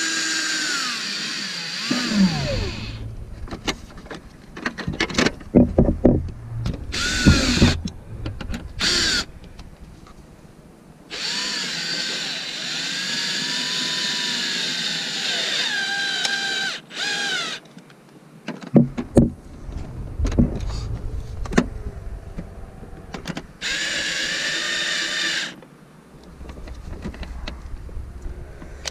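Power drill driving Phillips screws into a flush-mount LED taillight, run in several bursts of one to six seconds with the motor's pitch rising and falling as the trigger is worked. Clicks and knocks come between the bursts.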